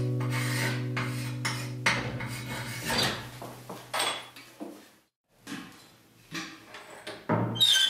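A held acoustic guitar chord rings out and fades over the first few seconds, with scattered knocks, rubs and clinks of household things being handled. After a brief gap come more knocks and a sharp ringing clink near the end.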